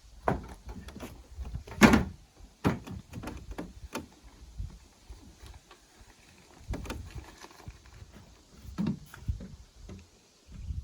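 Scattered wooden knocks and thumps, the loudest about two seconds in, from a door being handled and a pallet-built wall frame being kicked to bring it plumb.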